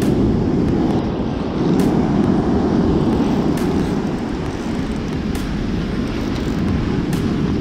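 Steady roar of heavy surf breaking on the beach, with wind rumbling on the action camera's microphone.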